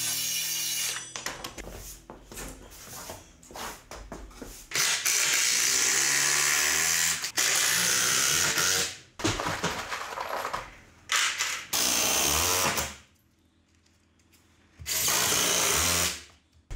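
Cordless power tools working wood, running in loud bursts of one to two and a half seconds, with clicks and knocks of handling between them and a short near-silent pause about 13 seconds in.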